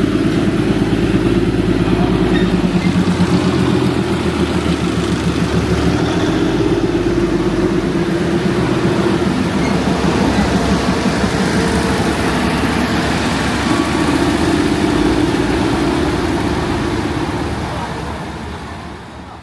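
Diesel locomotive engine of the Darjeeling toy train running steadily with a fast low pulse, fading out near the end.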